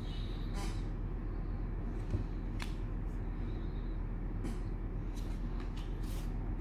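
Soft, brief rustling and sliding sounds of trading cards and their plastic cello-pack wrapping being handled, five or six short swishes with a small click about two seconds in, over a steady low electrical hum.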